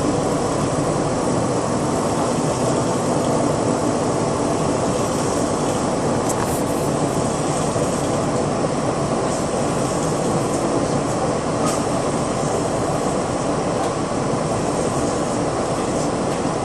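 Steady running noise inside a moving city bus, engine and road rumble holding an even level throughout.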